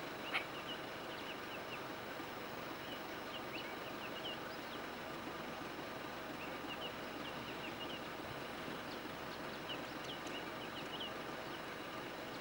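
Outdoor woodland ambience: a steady background hiss with short, high chirps of small birds scattered throughout, and a single sharp click about half a second in.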